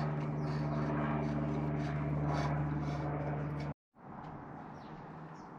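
A steady low mechanical hum with light scraping and clicking from a dropper-post cable and its rubber tubing being fed into a mountain bike frame. The hum cuts off abruptly about two-thirds of the way through, leaving only faint handling noise and hiss.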